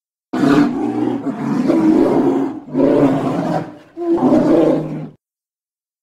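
Deep animal roars made as a sound effect for the extinct short-faced bear (Arctodus): a long roar followed by two shorter ones, stopping about a second before the end.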